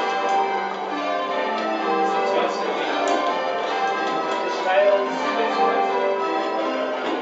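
Eight church bells in full-circle change ringing, rung to spliced surprise major methods: a continuous, evenly paced stream of bell strikes in shifting order, their ringing tones overlapping.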